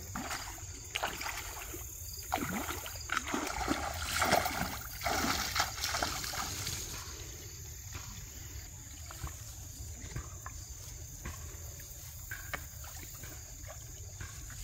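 Bare feet wading through a shallow, rocky creek: irregular splashing steps for the first half, then quieter small clicks of stones over the creek's steady trickle. A faint steady high tone runs underneath.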